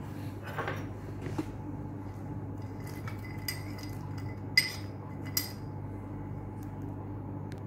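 Glassware and a metal serving spoon clinking against a cut-glass serving bowl as a small glass bowl of nuts and dried fruit is tipped over it: a handful of short, sharp clinks, the loudest about halfway. A steady low hum runs underneath.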